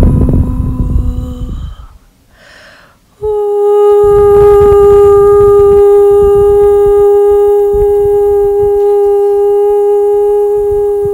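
A woman's voice toning: a lower held note ends about a second and a half in, then a breath, then one long, very steady higher note held for about eight seconds.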